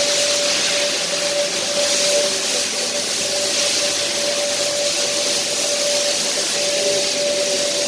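Machinery of an HDPE pipe manufacturing line running: a steady hiss with a constant mid-pitched whine that drops out briefly now and then.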